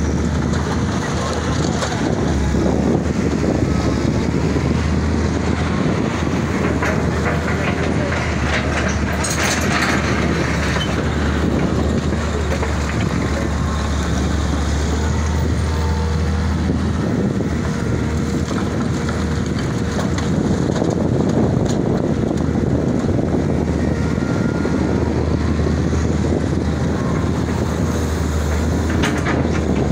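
Caterpillar M318 wheeled excavator's diesel engine running steadily under working load as it digs and loads rubble stones into a dump truck. There is a loud clatter of stones about nine seconds in, and a few sharper knocks near the end.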